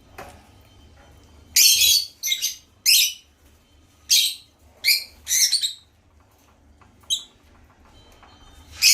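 African lovebirds calling: a string of short, shrill, harsh chirps, about eight of them at uneven intervals, the loudest cluster in the first half and one last loud call near the end.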